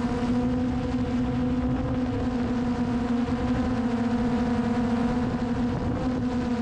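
Quadcopter drone's propellers humming steadily in flight: one even, pitched hum with overtones over a rushing noise.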